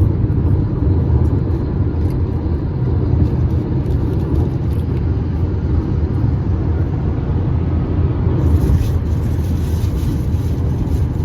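Steady road and engine rumble heard inside the cabin of a car driving on the highway, with a faint higher hiss joining about eight seconds in.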